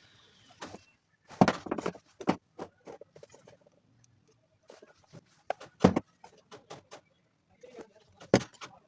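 Repaired LED bulbs being handled for testing: a string of irregular clicks, knocks and light rattles, the loudest knocks about a second and a half in, near six seconds and near the end.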